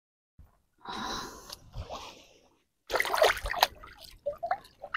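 Water splashing and dribbling as a gutted fish is rinsed by hand in shallow seawater, in a few short bursts with pauses between, the busiest splashing about three seconds in.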